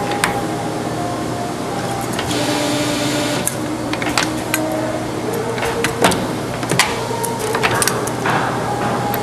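CNC machine's stepper motors whining at steady pitches that step up and down as the axes move, with scattered sharp clicks and knocks over a constant hum.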